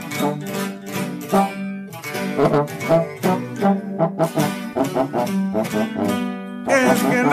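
Song music in an instrumental passage: a run of quick plucked-string notes over sustained low notes, with a singing voice coming in near the end.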